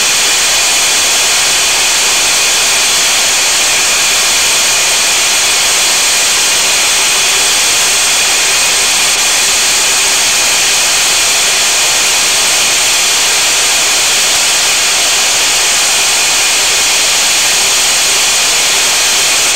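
Aircraft engines heard inside the cockpit in flight: a loud, steady rush with several high whining tones that never change.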